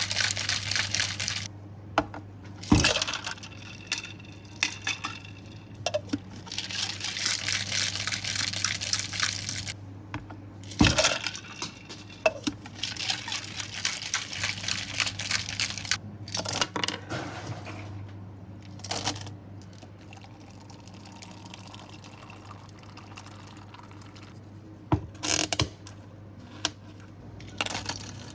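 Tea and ice being shaken hard in a plastic shaker cup, rattling in several bursts a few seconds long, with a few sharp knocks between them. Near the end, ice clinks as it is scooped into a plastic cup. A steady low hum runs underneath.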